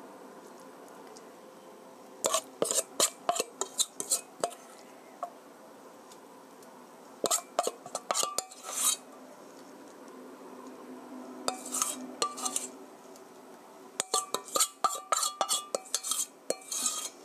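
A metal spoon scraping and clinking against a stainless steel mixing bowl, scooping out the last of a ground pork mixture. The scrapes come in four bursts of quick clicks separated by quieter pauses.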